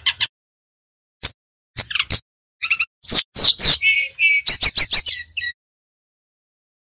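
Brown-chested jungle flycatcher (sikatan rimba dada coklat) singing: a run of sharp chirps and quick whistles that slide down in pitch, with a fast trill of about five notes near the middle, then a pause of over a second near the end.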